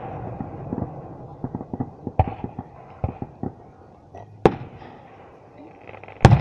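Aerial firework shells bursting: four sharp bangs a second or so apart, each trailing off in an echo, with smaller pops and crackle between them. The loudest bang comes near the end.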